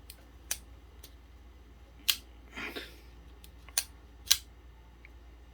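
Liner-lock flipper folding knife being worked open and shut: four sharp metallic clicks of the blade snapping out and the lock engaging and releasing, with a short sliding rasp near the middle.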